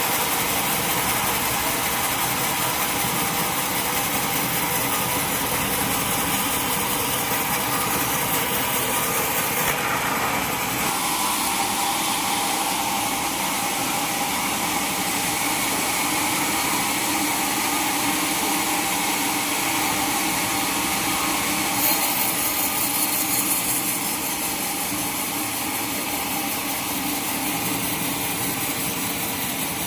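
Sawmill saw running and cutting through timber, a dense, steady machine noise. Its pitch and character shift about ten seconds in and again around twenty-two seconds, with a brief louder moment at the second change.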